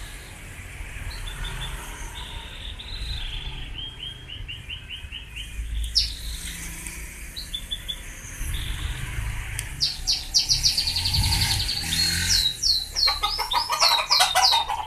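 Birds chirping: runs of quick repeated high notes, and in the last few seconds a series of short falling whistles, the loudest part. A single sharp click about six seconds in.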